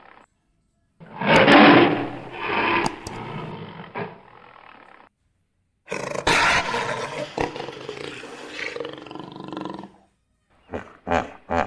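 Big-cat roars laid over the picture as sound effects: two long rough roars of about four seconds each, a short gap between them, then a few short roars near the end.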